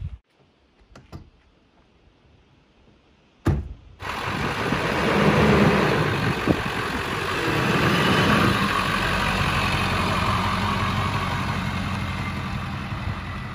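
Ford F-350 Super Duty with a 7.3 Power Stroke turbo-diesel V8 driving slowly along a dirt track, engine running steadily with road noise. It sets in suddenly about four seconds in, after a few faint clicks and a sharp knock.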